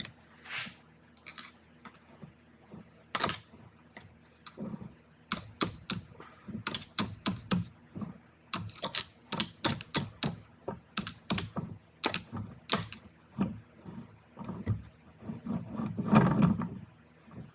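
Metal transfer case parts and hand tools clicking, tapping and clinking together in an irregular run of small knocks during bench assembly, with a longer, louder scrape or clunk about a second long near the end.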